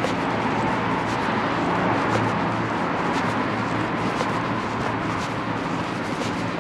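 City street ambience: steady traffic noise, with footsteps at walking pace, about two a second.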